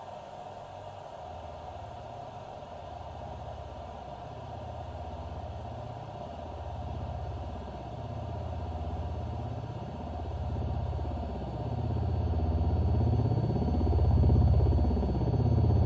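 Electronic drone from a genetic-algorithm computer composition: low throbbing tones that swell and beat, with a sweeping phasing shimmer, growing steadily louder. A thin high steady whine comes in about a second in.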